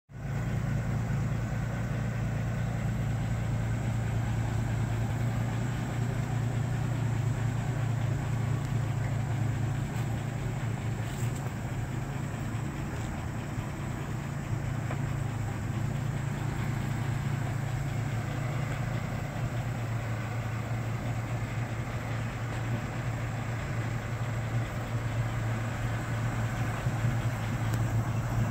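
1949 American LaFrance 700 series fire engine idling steadily, a low even engine note.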